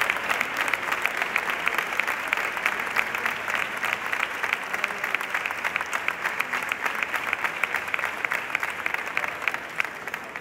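Audience clapping in sustained applause, easing off slightly toward the end.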